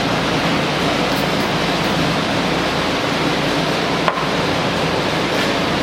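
Steady, loud rushing hiss with no rhythm or pitch, and a single sharp click about four seconds in.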